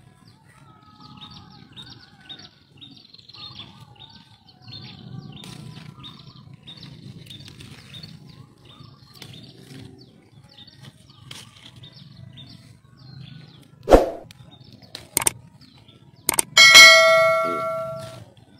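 Faint bird chirps over a low rustle. Near the end come a few sharp clicks and then a loud bell-like ding that rings out for about a second and a half: the click-and-bell sound effect of a subscribe-button animation.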